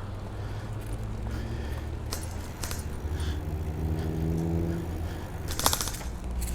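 Riding noise picked up by a bicycle-mounted microphone: a steady low rumble of tyres and wind, with a low droning hum that rises slightly in the middle and a burst of rattling clicks near the end.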